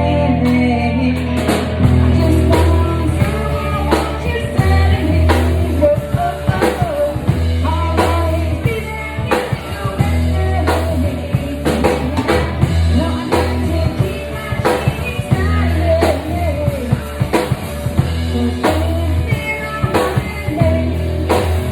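Live rock band playing a song: a drum kit keeping a steady beat under bass and guitar, with a lead vocal singing.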